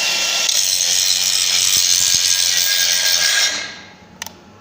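DeWalt DCG414 cordless angle grinder grinding a steel weld seam with an abrasive disc, then stopping and winding down about three and a half seconds in. The cut-out is the electronics in the FlexVolt battery switching the tool off as the battery overheats.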